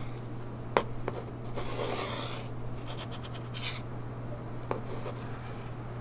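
Pencil scratching along the edge of a wooden board as it traces the board's outline onto a thin sheet, in short strokes with a few sharp clicks, the loudest about a second in.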